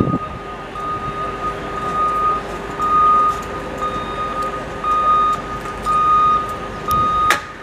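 LIRR M7/M9 electric commuter train approaching under a repeating electronic warning bell: a high tone of about half a second, roughly once a second, over the train's rumble. A sharp knock comes near the end.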